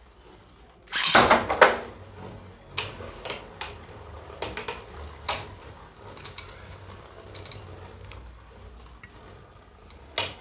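Beyblade Burst spinning tops in a plastic stadium: a ripcord launcher zips about a second in, then two tops spin with a steady whirr and clack against each other several times. The last clack comes near the end.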